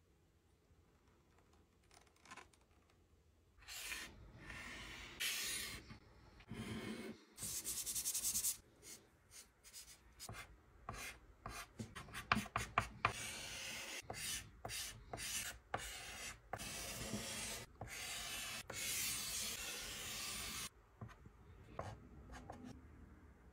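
Soft chalk pastel sticks scratching and rubbing on paper. After a quiet start come longer rubbing strokes, mixed with runs of quick, short scratchy strokes.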